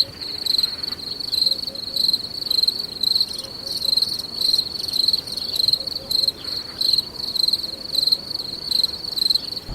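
Insects chirping in a continuous high-pitched pulsing trill that swells about twice a second.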